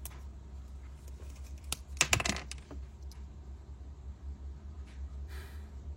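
Handling of a Zippo lighter: a quick cluster of sharp clicks about two seconds in, with a few fainter clicks around it, over a steady low hum.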